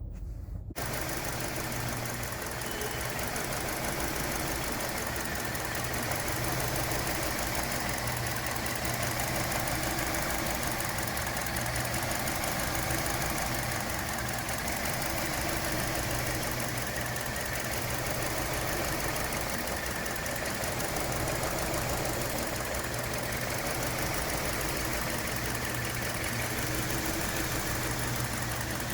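2017 Hyundai Elantra's four-cylinder engine idling steadily with a misfire. The misfire persists after the No. 2 ignition coil was replaced and the engine computer was updated.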